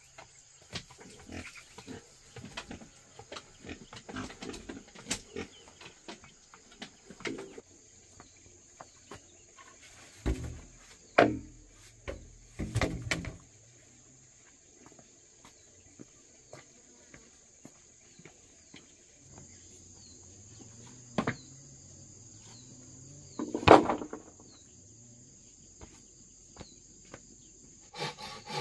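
Pigs grunting, among scattered clicks and knocks, with a few louder knocks in the middle and a loud one near the end, over a steady high-pitched hiss.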